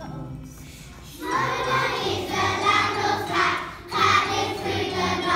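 A choir of young children singing with backing music; the singing comes in loud about a second in and breaks off briefly near the four-second mark.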